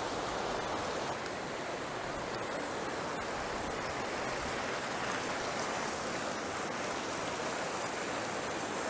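Fast glacier-fed river rushing over boulders through rapids: a steady, unbroken noise of churning water.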